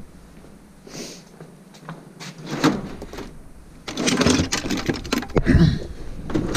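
A steel tool-chest drawer being opened and tools (tape measures, pencils) clattering and rattling inside it as a hand rummages through them, loudest from about two-thirds of the way in.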